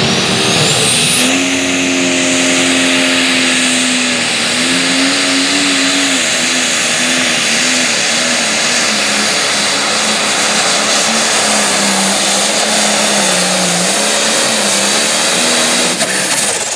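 Turbocharged diesel engine of a Farmall light pro stock pulling tractor at full throttle, dragging the sled with a high turbo whistle over the engine. The engine note wavers as the tractor works down the track, and about 16 seconds in the throttle is let off and the turbo whine falls away.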